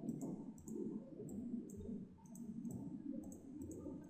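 Computer mouse clicking, about a dozen light clicks at uneven spacing, as hi-hat steps are entered one by one into a software drum machine's step sequencer.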